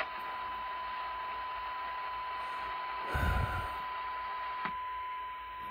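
Steady 1 kHz test tone from a bench test radio's speaker, over a constant hiss of radio noise. A short low rumble of handling noise comes a little past three seconds in, and a single click near the end.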